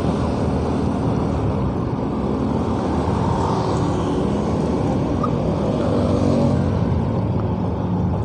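Motorcycle riding at a steady cruising speed: a steady engine note under wind and road noise on the rider's microphone.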